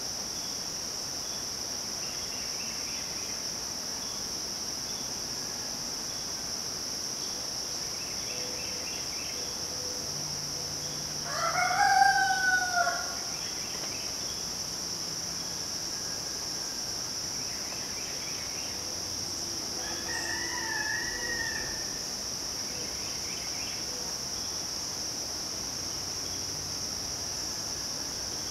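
A rooster crows once, loud and close, near the middle, and a fainter rooster crow comes about eight seconds later. Under both runs a steady, high-pitched drone of midsummer insects, with scattered faint bird calls.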